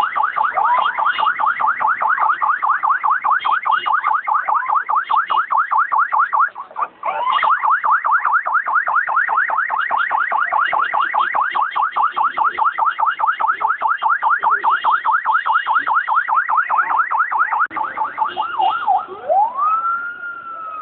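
Police escort vehicle siren in a fast repeating yelp, broken off briefly about seven seconds in. Near the end it switches to a slow wail that rises and starts to fall.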